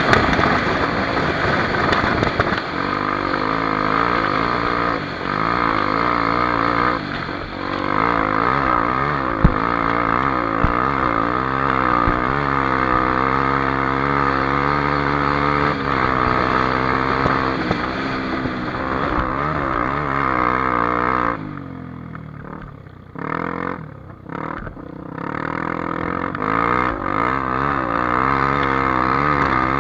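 Honda XR Tornado single-cylinder four-stroke dirt bike engine under riding, its pitch rising and falling with the throttle. About 21 seconds in it drops off for a few seconds as the throttle is closed, then picks up again.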